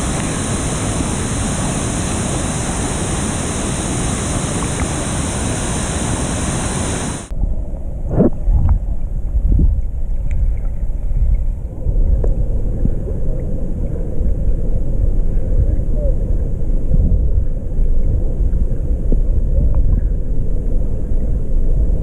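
Waterfalls pouring, a steady loud rushing heard with the camera at the water's surface. About seven seconds in the sound turns suddenly muffled and low as the camera goes underwater, with a few bubbling gurgles just after and a dull underwater rumble for the rest.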